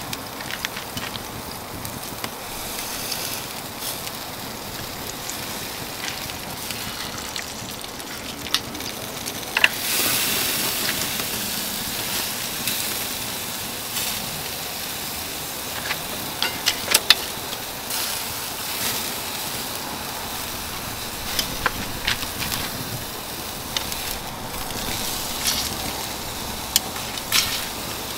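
Oak embers crackling and popping under a steady sizzling hiss, with a louder surge of sizzling about ten seconds in.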